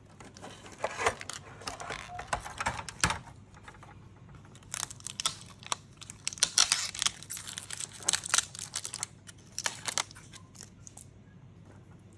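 Black adhesive tape being peeled off a cable inside an opened LCD monitor: scattered light clicks of plastic and metal parts being handled, then a run of crinkling, scratchy tearing about five seconds in.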